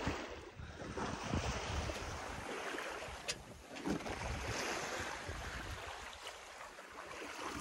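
Sea water swishing and splashing along the hull of a sailboat under sail, with wind on the microphone. A single sharp click about three seconds in.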